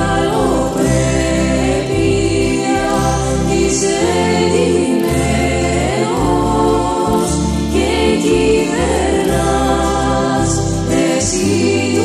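Greek Christian hymn: sung melody over full instrumental accompaniment with a steady bass line.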